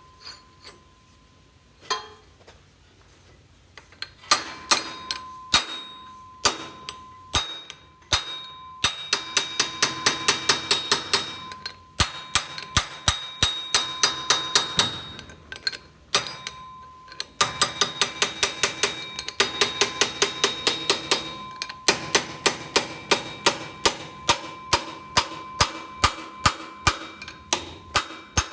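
Rapid metal-on-metal clicks from a hand tool working on the loader wheel's hardware, about three to four a second in spells with short pauses, each click ringing briefly.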